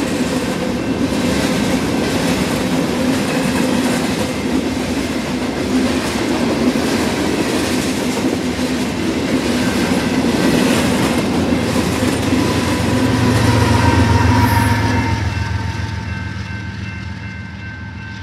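Freight cars rolling past: a steady rumble of steel wheels with the clickety-clack of wheels crossing rail joints. Over the last few seconds the rumble fades and faint steady high tones are heard.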